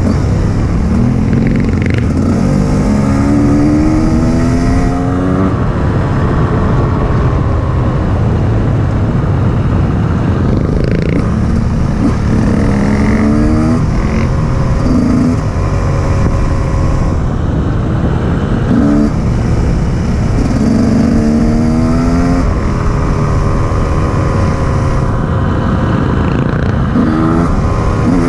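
KTM EXC 150 two-stroke enduro motorcycle engine being ridden on a gravel track, its pitch rising repeatedly as the throttle is opened and the rider shifts up, then dropping back. A steady rumble of wind and tyre noise runs under it.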